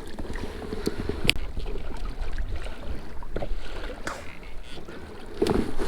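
Noise from handling things in a fishing kayak: a few light clicks and knocks, with a louder low rustle near the end, over a steady low rumble of wind on the microphone and water around the hull.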